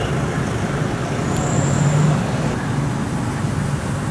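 Road traffic passing: a steady rumble with an engine hum that swells in the middle, and a short high tone a little over a second in.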